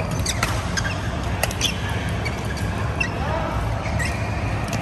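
Badminton rally: rackets striking the shuttlecock in sharp clicks, and trainers squeaking on the court mat, over a steady low hall hum and faint chatter.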